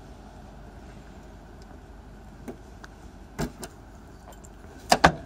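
Key being turned in and pulled from the frosted door lock of a Polski Fiat 126p: a few small clicks and key jingles, then two loud clacks in quick succession near the end.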